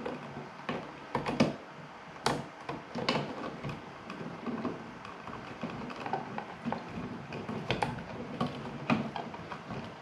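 Stiff copper house wires being handled at an electrical box, rustling with irregular small clicks and ticks as they are pushed into push-in wire connectors. A few sharper clicks stand out.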